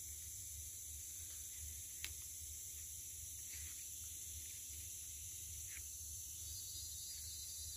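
Steady high-pitched hiss of a rainforest insect chorus, with one sharp click about two seconds in.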